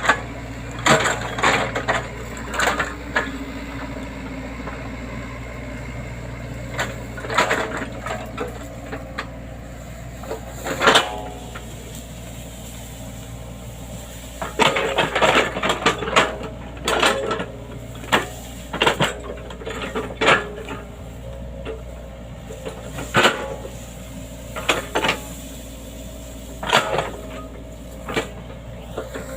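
Excavator engine running steadily under a string of sharp cracks, snaps and clanks as the machine clears land, breaking wood and vegetation.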